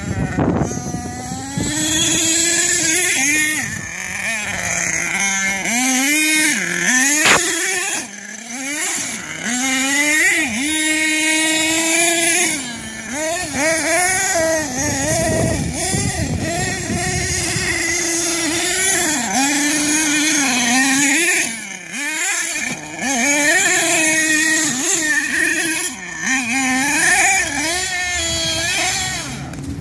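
HPI Savage 4.6 nitro RC truck's small two-stroke glow engine running, its pitch rising and falling over and over as the throttle is opened and closed while the truck drives.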